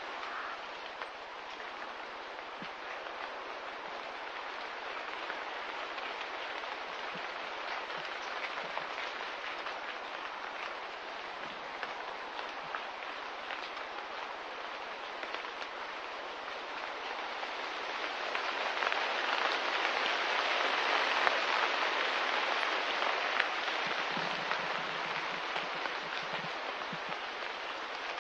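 Light rain falling: a steady, even hiss with faint scattered ticks, growing louder for a few seconds about two-thirds of the way through.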